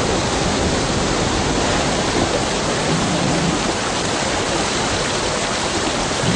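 Rushing water of a rocky mountain stream pouring over stones: a loud, steady rush.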